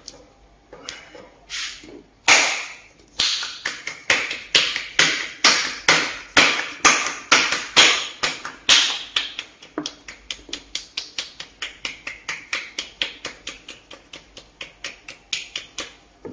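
Coloured pencil shading on paper: a run of rhythmic back-and-forth scratching strokes, about two or three a second. The strokes turn quicker and lighter from about ten seconds in.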